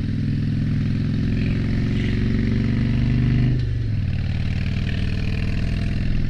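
2007 Harley-Davidson Dyna Street Bob's Twin Cam 96 V-twin engine pulling under throttle, heard from the rider's helmet. Its note climbs gently, then the revs drop sharply about three and a half seconds in and it runs on at a lower, steady pitch.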